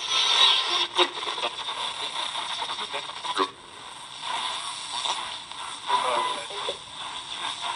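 Tecsun R9012 portable receiver's speaker on the AM medium-wave band while being tuned across the dial: static and hiss with crackles, and brief fragments of station audio and voices coming and going.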